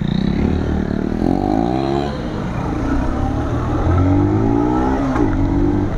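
Motorcycle engine accelerating up through the gears. Its pitch climbs, then drops at each of two gear changes, and climbs again near the end.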